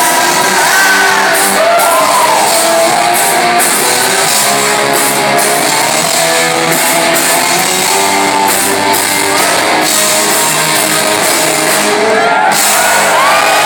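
Rock band playing live in a large hall: electric guitar, drums and a male lead vocal.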